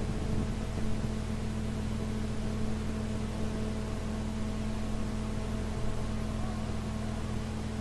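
Steady low hum and hiss of an old recording, with a faint wavering voice coming in near the end.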